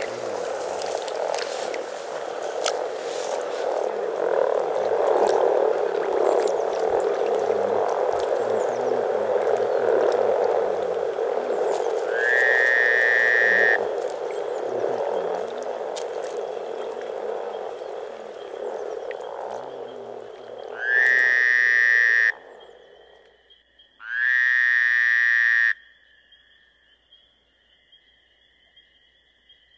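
A dense chorus of many frogs calling together at a spring breeding site, a continuous low grunting din. Three loud pitched sounds that slide up at the start and hold for one to two seconds break in about 12, 21 and 24 seconds in. The chorus fades out around 23 seconds in, leaving faint steady high tones.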